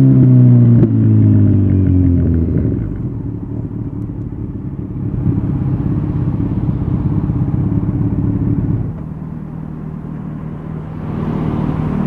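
Kawasaki Z900's inline-four engine through an Akrapovic carbon full exhaust system, its pitch falling as the bike slows, then running low and uneven at low revs. It settles to a steadier idle about nine seconds in, and the level rises again near the end.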